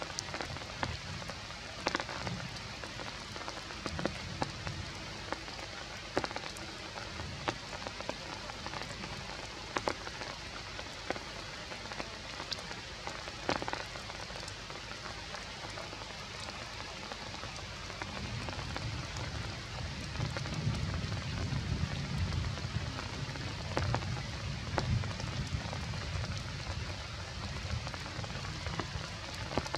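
Steady rain falling on forest leaves, a constant hiss with scattered sharp taps of single drops. A low rumble swells in about two-thirds of the way through and stays under the rain.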